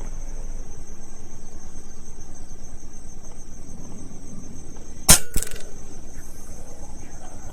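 A single PCP air rifle shot about five seconds in: a sharp crack followed by a second sharp hit about a quarter second later. Under it, steady high-pitched insect chirring.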